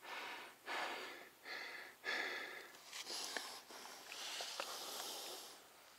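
A man breathing hard through his mouth, about six quick breaths in a row with a longer one about four seconds in: he is out of breath, catching his wind after mountain-biking.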